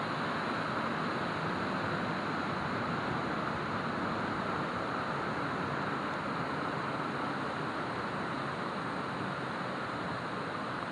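Shallow stream running over rocks and small riffles, a steady, unbroken rush of water.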